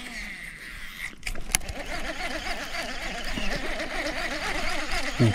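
Spinning reel being cranked to retrieve a lure, with a continuous whirring. It starts just after a sharp click about a second and a half in, typical of the bail snapping shut after a cast. Near the end there is a brief, louder, low rising sound.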